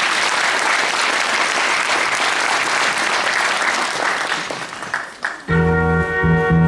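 Audience applauding, dying away about five seconds in. Recorded music then starts with sustained chords over a bass line.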